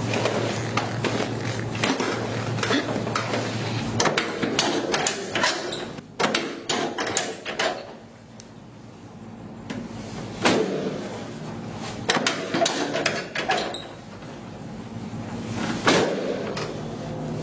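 Rustling, creaking and irregular knocks of a patient turning over on a padded chiropractic table, with two louder knocks about ten and sixteen seconds in.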